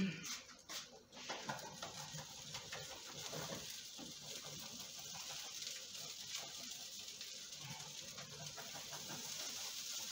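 Spinach tortilla frying in a pan, a steady sizzle that builds after the first second while a spatula scrapes and lifts at its edges to loosen it. A short clatter of cookware right at the start.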